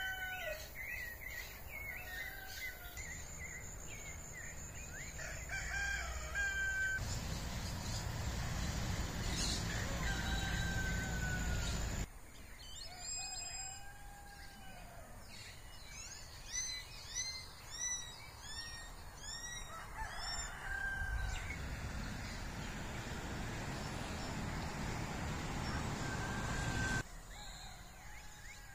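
Roosters crowing now and again, with smaller birds chirping quickly in between. A low noisy rumble comes in for two stretches of several seconds each, then cuts off suddenly.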